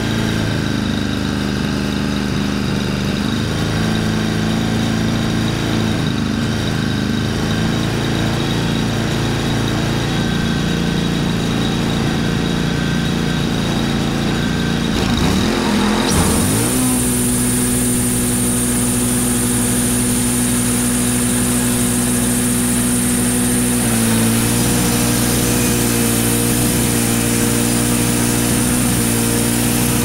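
Wood-Mizer LT35 sawmill engine idling steadily, then revving up about halfway, after which it holds a higher, steady working speed with a high whine added, as the band blade runs. Near the end the blade is cutting into a shagbark hickory log, with a slight change in the engine note as the cut takes load.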